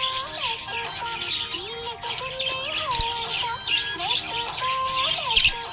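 Budgerigar chirping and warbling in quick, busy bursts, over a tune of held notes that slide between pitches.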